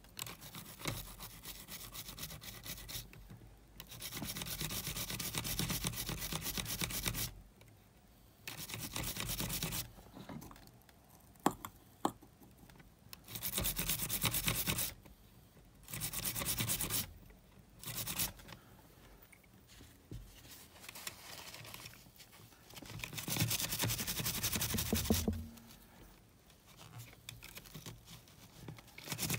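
A toothbrush scrubbing the motor inside a Sony WM-GX822 cassette Walkman. The sound comes in bursts of quick bristle strokes, each lasting one to three seconds, with quieter pauses between.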